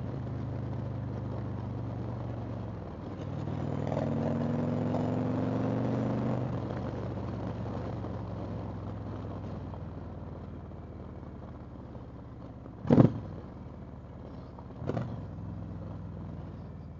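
Indian Chieftain Dark Horse's V-twin engine running under way, picking up and getting louder about three to six seconds in as it accelerates, then easing off. Two sharp knocks come near the end.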